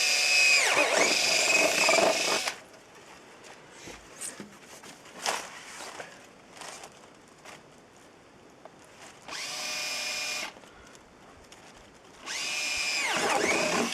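Electric drill with a 10 mm bit drilling holes through 3 mm ABS plastic, run in three bursts: a long one at the start, a short one a little past halfway, and another near the end. The motor's whine sags in pitch as the bit bites into the plastic and then picks up again.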